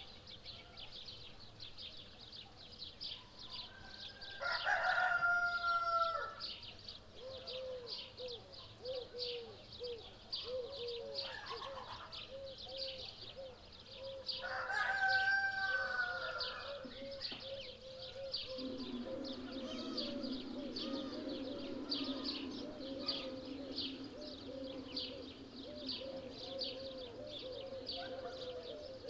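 A rooster crowing twice, about five and fifteen seconds in, each crow a held call of about two seconds that falls at the end. Under it runs a steady, dense high chirping, and from about seven seconds a quick string of short, lower repeated calls.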